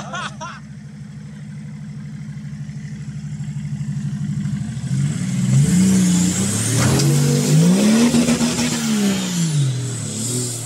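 Toyota Hilux's swapped-in BMW M57 straight-six turbodiesel running steadily, then revving up about five seconds in as the truck drives into a deep muddy water hole, held high with water splashing, and dropping back near the end as it climbs out.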